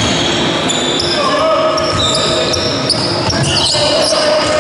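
Basketball game on an indoor court: sneakers squeaking on the hall floor again and again in short high chirps, with the ball bouncing and players' footsteps thudding.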